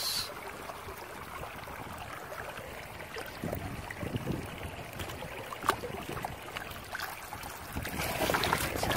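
Shallow stream water running and splashing around hands as a fluid-bed gold trap box is pulled out of the current, with a sharp knock about six seconds in. Near the end the splashing grows louder as the dripping box is lifted clear of the water.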